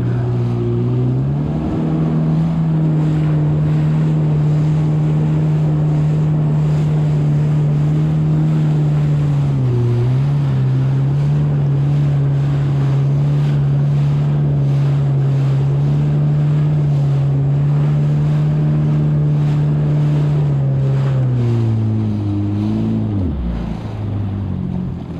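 Yamaha WaveRunner jet ski engine running at a steady cruising speed, with spray and water hiss off the hull. The engine note rises about a second in, dips briefly around the middle, and falls away near the end as the ski slows.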